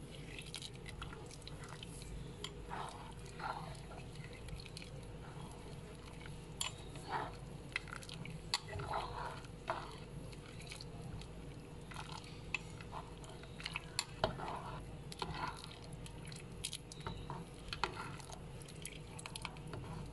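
Plastic spatula stirring flattened rice (poha) in water in a metal pot, with irregular soft scrapes and taps against the pot while the poha softens. A steady low hum runs underneath.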